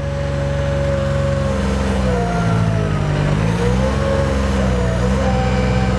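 Aquatic weed harvester boat's engine and hydraulics running steadily with the cutter engaged and cutting. The engine's pitch sags briefly about halfway through, then comes back up.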